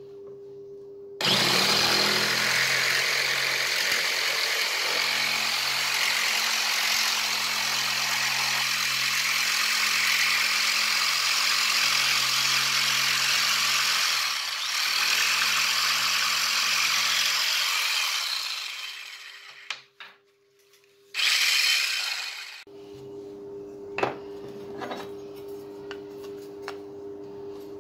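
Electric jigsaw cutting a thin wooden knife-handle piece: the motor starts about a second in and runs steadily while the blade rasps through the wood, winding down after about 18 seconds. A brief second run follows, then only a faint steady tone remains.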